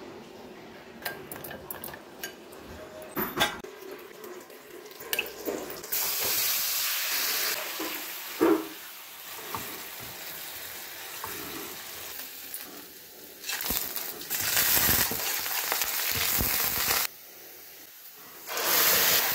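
Hot oil sizzling in a frying pan as soya chunks and then sliced onions fry, in stretches that start and stop abruptly, the first about six seconds in. Before that, scattered light clinks and taps of utensils.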